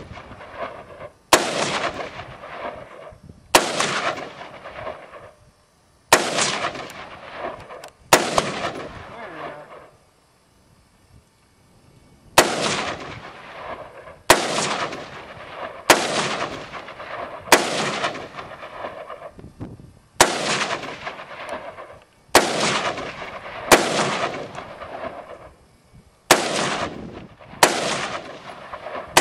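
AR-15 rifle fired one shot at a time in a steady string, about 13 shots roughly every two seconds, each followed by a long echo, with one short pause about ten seconds in.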